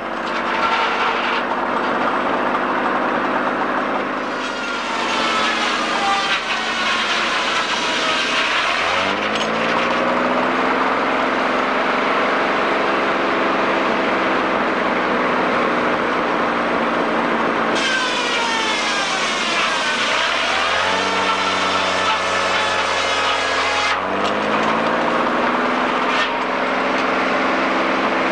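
Sawmill machinery running and sawing wood: a steady mechanical drone with a high saw whine. The pitch drops and climbs back several times as the load on the saw changes.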